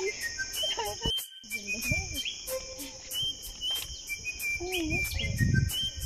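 Insects droning steadily at a high pitch, pulsing about three times a second, with short whistled bird calls over them. A brief low noise swells about five seconds in.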